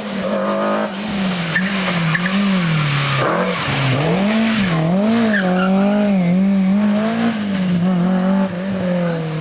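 Rally car engine on a special stage, its revs rising and falling again and again as the driver lifts and gets back on the throttle through a run of bends.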